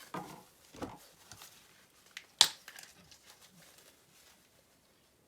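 Tissue rubbing and scraping over a graphics card as dust is wiped off it, with a single sharp click about two and a half seconds in.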